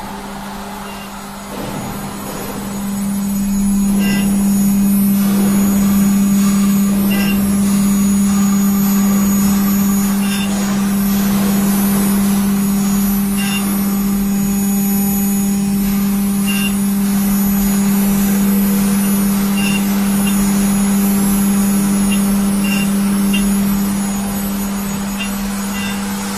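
CNC engraving and milling machine running with a steady low hum that swells a couple of seconds in and eases a little near the end. Faint ticks come about every three seconds.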